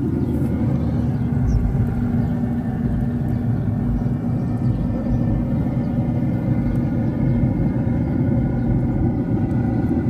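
A steady, loud, low mechanical hum with several held tones, like a motor or engine running at a constant speed.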